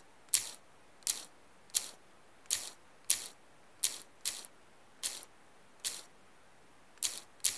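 Key-press clicks of a Samsung phone's on-screen keyboard as a password is typed: about eleven short, sharp, high-pitched ticks at an uneven pace of one to two a second, two of them close together near the end.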